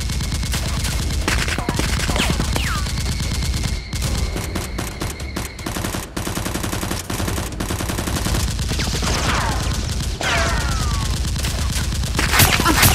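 Dubbed-in gunfire sound effects: rapid, continuous automatic fire with several short falling whines, laid over a staged Nerf blaster fight.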